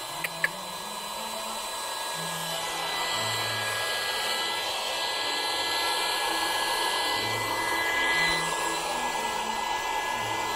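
Electric air pump, powered from the car, running steadily with a whirring hiss as it inflates a car air mattress.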